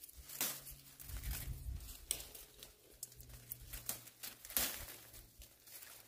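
Wild tea bush leaves rustling and snapping as young leaves are plucked by hand: a string of short, irregular crackles.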